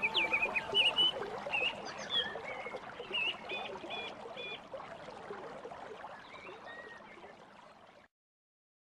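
Small birds chirping in short calls and quick two-note phrases over a steady background hiss. The sound fades gradually and cuts to silence about eight seconds in.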